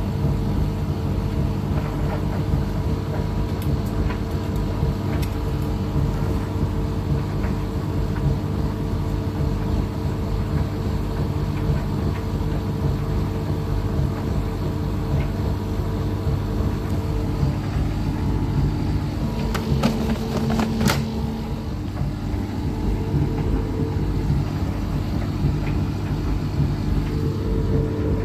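Bosch Serie 6 front-loading washing machine spinning its drum at speed on a spin-only cycle set to 1400 rpm. The motor and drum make a steady hum, with a few light clicks about two-thirds of the way through.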